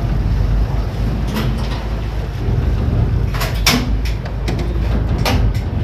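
Low, steady rumble of a small harbour ferry under way, with a few sharp clacks, two of them close together around the middle.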